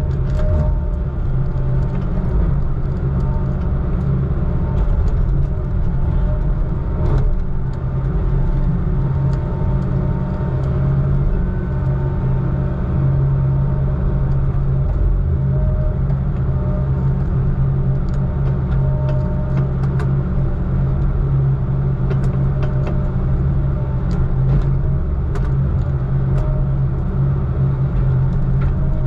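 Heavy diesel engine running steadily with a low drone, with scattered light clicks and rattles.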